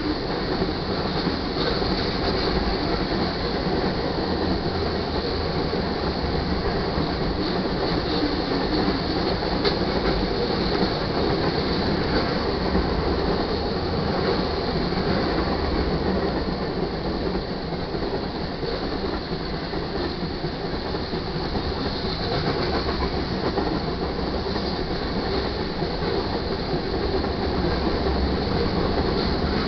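Freight cars of a manifest train (tank cars and covered hoppers) rolling past, their steel wheels running steadily on the rails.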